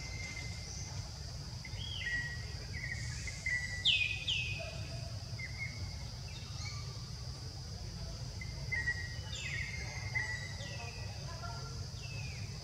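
Forest ambience: a steady high insect drone with repeated short bird whistles that slide down in pitch, the loudest pair about four seconds in, over a low rumble.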